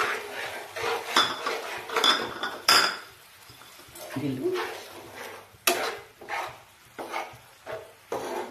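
Metal spatula stirring and scraping thick tomato-masala gravy in a frying pan: a run of irregular scrapes and knocks of the blade against the pan.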